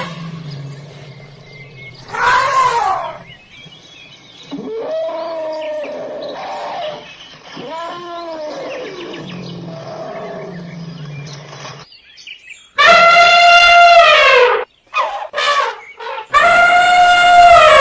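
Elephant calls. A low steady rumble runs under several shorter rising-and-falling calls, then two loud brassy trumpet blasts come near the end, each falling in pitch as it ends.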